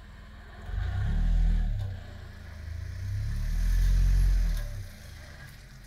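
ATV engine revving up hard twice under load as the quad churns through deep bog mud, each surge rising and then falling back to a low idle, the second one longer.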